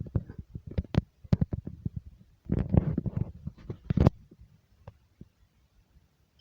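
Irregular clattering and knocking with bursts of low rumbling, as things in a room shake during an earthquake; it dies down about four seconds in, leaving a few faint clicks.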